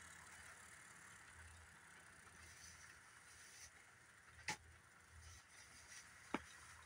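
Faint, steady running noise of a model passenger train's cars rolling along the track, with two sharp clicks a little under two seconds apart in the second half.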